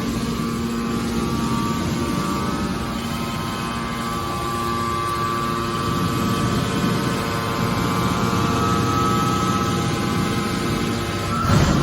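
Hydraulic metal baler running: a steady machine hum from its motor and pump, with a single loud bang near the end.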